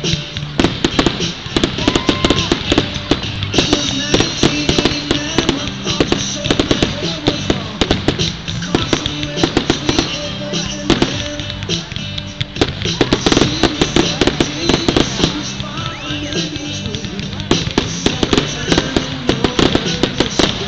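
Fireworks display: a dense run of bangs and crackling from aerial shells bursting. Music plays underneath throughout.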